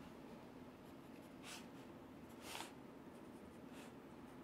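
Faint scratching of a pencil drawing on paper, a few short strokes with two clearer ones near the middle.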